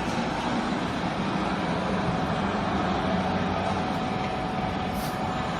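Steady machine noise with a low hum and a faint steady whine, from a running garbage baler; a brief hiss sounds about five seconds in.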